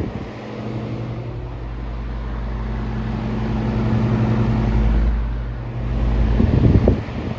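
Vintage portable electric fan running, its motor giving a steady low hum under a rush of air. The air rush builds over the first few seconds, eases briefly, then buffets the microphone again near the end.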